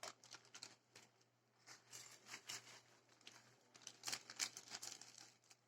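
Faint crinkling and rustling of a chip packet as crushed potato chips are tipped out onto a plate, in a few short bursts about halfway through and near the end.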